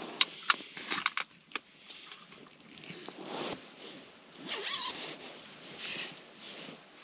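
A zipper pulled in a few short strokes, after several sharp clicks in the first second or so.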